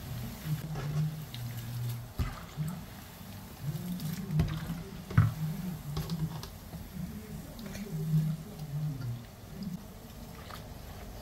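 Small anchovies deep-frying in bubbling oil, with a steady fine sizzle and crackle. A slotted spatula stirs and lifts the fish, giving sharp clicks and scrapes against the pan, the loudest about halfway through.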